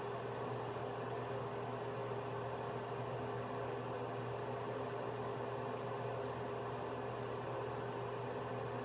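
Steady machine hum with a low drone and an even hiss, the constant running noise of a fan-type appliance in a small room.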